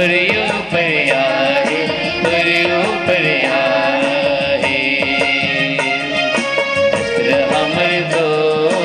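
Women's choir singing a devotional hymn into microphones, amplified and accompanied by an electronic keyboard and a hand drum.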